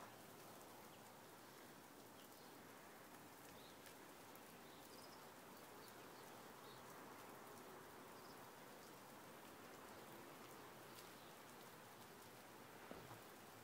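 Near silence: a faint, steady outdoor hiss with a few faint, brief high chirps and ticks.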